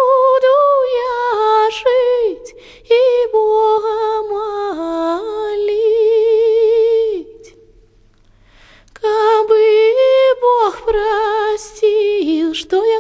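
A woman singing unaccompanied in Russian, one voice on long held notes with wide vibrato. The singing breaks off for about a second and a half past the middle, then resumes.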